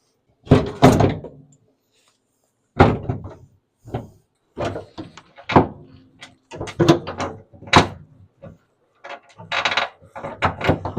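Irregular metal clunks and knocks from tools and parts as a hydraulic line is worked onto a skid steer's control valve, about a dozen in all and bunched around the middle and near the end.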